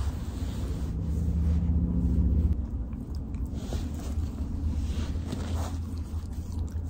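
A dog licking and snuffling right against the microphone, with a few short wet smacks, over a steady low rumble of the phone rubbing against the bedding.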